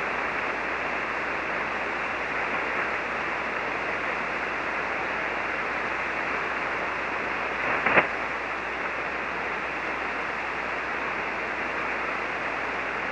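Steady static hiss from a ham radio receiver on single sideband, heard between transmissions with no station talking, with one short crackle about eight seconds in.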